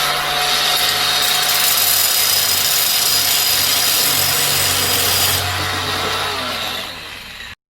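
Electric angle grinder running under load against steel: a steady harsh grind over a motor hum that starts suddenly, eases off about five and a half seconds in, and cuts off abruptly near the end.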